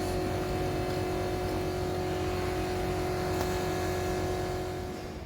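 A motor running steadily at a constant pitch, easing slightly near the end before cutting off.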